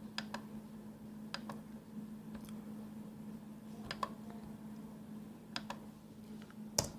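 Scattered clicks of a computer keyboard and mouse, several in quick pairs, over a steady low electrical hum.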